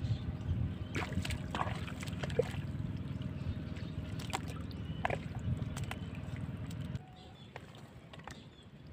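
Hands sloshing and splashing in shallow muddy pond water while pulling at a pile of sunken branches, with scattered knocks and snaps over a steady low rumble. It drops much quieter about seven seconds in.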